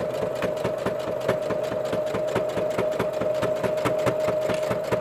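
Electric domestic sewing machine stitching a seam through layered cotton fabric at a steady speed: a constant motor whine with the needle's rapid, regular ticking.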